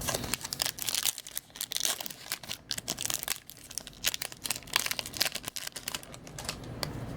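Crinkling of a foil trading-card pack wrapper being handled and torn open, with a run of irregular sharp crackles.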